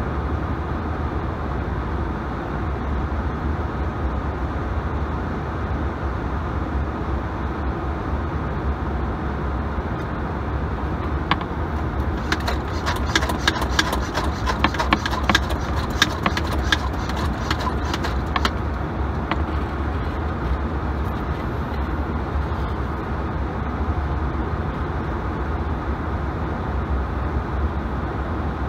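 Steady outdoor background rumble and hiss. About twelve seconds in, a run of irregular sharp clicks starts and lasts about six seconds.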